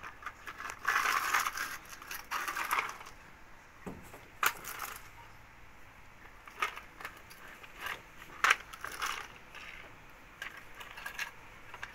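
Plastic toy monster truck pushed by hand over gritty, dusty ground: its wheels scrape and crunch on the grit for a stretch a second or two in, then scattered sharp plastic clicks and knocks as it is rolled, tipped and set down.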